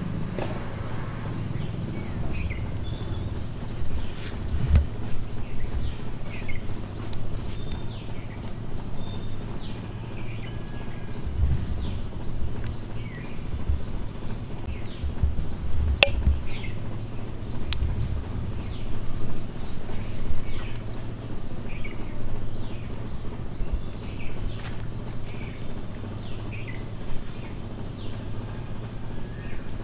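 Outdoor ambience: a short, high chirp repeated about three to four times a second, with scattered lower chirps, over irregular low rumbling bumps on the microphone and a single sharp click about halfway through.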